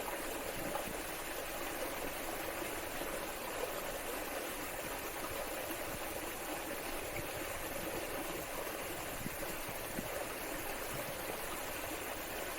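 Waterfall and stream water running steadily, an even rushing hiss with no breaks.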